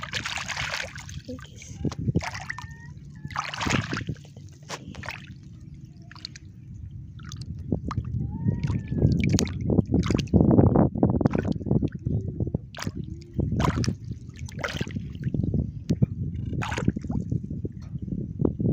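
Hands sloshing and splashing in shallow water while raking through the muddy sand bottom for clams, in irregular bursts that are busiest about ten seconds in.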